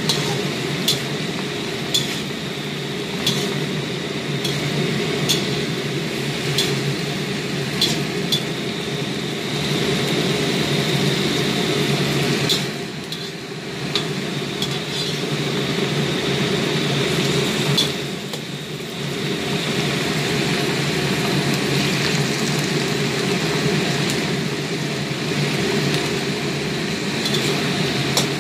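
Metal spatula clinking and scraping against a wok while cabbage is stir-fried, with sharp clinks roughly once a second over a steady frying hiss.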